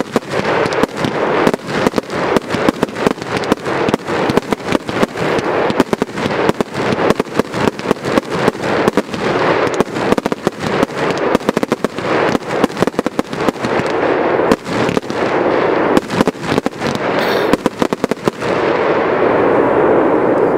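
Fireworks bursting in the air: a rapid, dense string of bangs and cracks, several a second, that merges into a steady crackle near the end.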